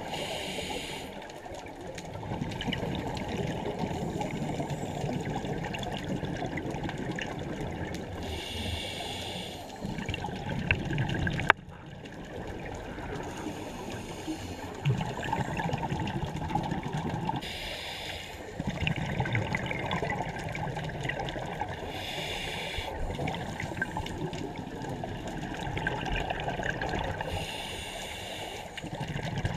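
A scuba diver's regulator breathing, recorded underwater: five short hissing inhales a few seconds apart, with bubbling, gurgling exhaust between them. A single sharp click about eleven seconds in.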